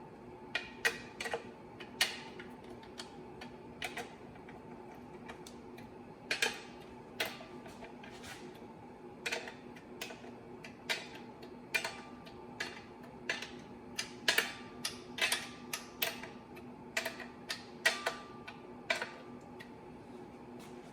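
Scattered, irregular sharp clicks of metal hand tools and bolts being handled while the clutch pressure-plate fasteners are started, over a steady background hum.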